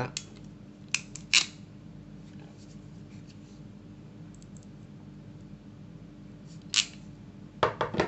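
Hand crimping pliers for cable terminals being handled, giving a few sharp metallic clicks as the jaws and handles move: two about a second in and more near the end. A steady faint low hum lies under them.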